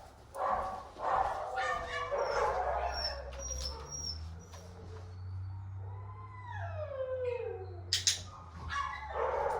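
Puppy whining in short pitched cries, then one long whine falling in pitch about six seconds in; a sharp click near the end.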